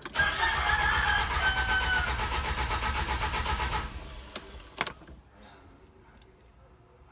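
Starter cranking a Mitsubishi Adventure's 4D56 four-cylinder diesel engine for about four seconds, with an even pulsing rhythm, without the engine catching, then stopping, followed by two short clicks. The engine is hard to start.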